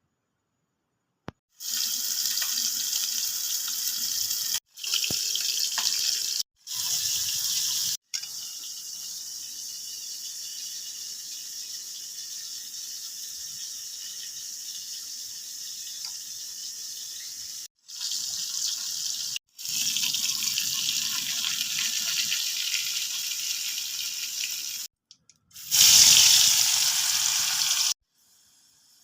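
Water running from a tap in several stretches that cut in and out abruptly; the loudest stretch comes near the end.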